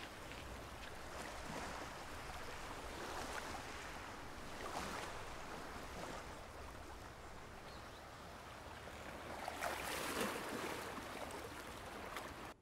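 Small waves washing onto a pebble shore: a soft, steady wash of water that swells every few seconds, loudest near the end, then cuts off suddenly.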